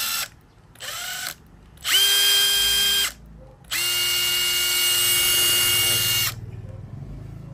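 Makita DTD171 brushless cordless impact driver running free with no load in several trigger pulls: a short burst about half a second in, a second run of about a second, then a longer run of about two and a half seconds. The motor whine rises as it spins up and holds steady, at a slightly different pitch from one run to the next.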